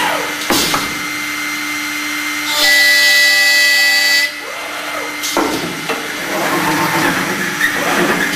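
CNC vertical boring machine at work on wooden parts: a steady hum, then a spindle whines loudly for about a second and a half. Sharp clunks follow and a rushing noise as the tool carriage moves to the next part.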